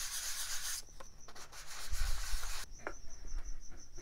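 Hand sanding block rubbing over a small plywood part, a glued pair of wing-mounting braces being sanded down to fit: one short stroke at the start, then a longer one from about one second to two and a half seconds in.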